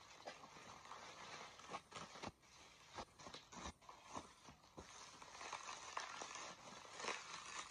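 Bubble wrap being handled and peeled off a parcel: faint crinkling and rustling with scattered sharp crackles.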